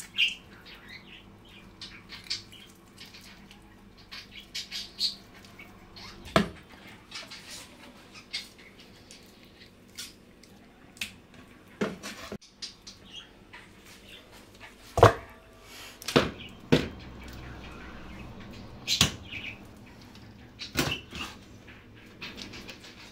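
Scattered knocks and clinks from cooking work, with a bird chirping now and then.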